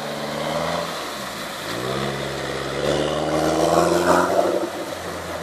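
Nissan Terrano off-road SUV's engine revving as it wades deep through a river: the revs dip about a second in, climb again, hold high, then ease off near the end.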